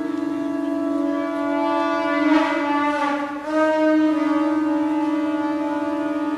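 Conch shell (shankha) blown in one long held note that grows brighter about two and a half seconds in, wavers and dips briefly, then steadies again.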